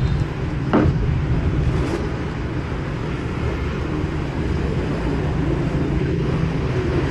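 Steady low rumble of street traffic, with a short knock about a second in as a ceramic bowl is set down on the wooden table.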